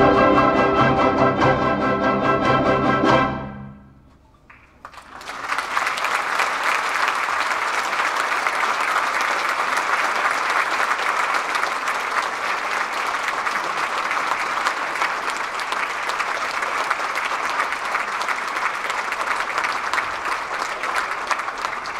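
Concert band of woodwinds, brass and percussion sounding a loud final chord, held about three seconds and then cut off. After a short near-silence, audience applause begins and carries on steadily.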